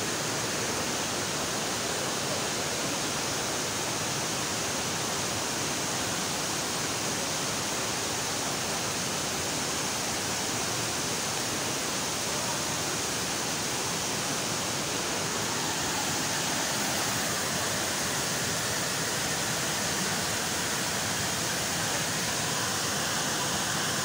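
Steady, even rush of a waterfall's white water pouring over rocks.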